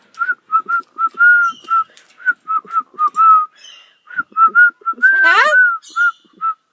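Whistling: a run of short notes at nearly the same pitch, two or three a second, some held a little longer. About five seconds in comes a louder, rising call.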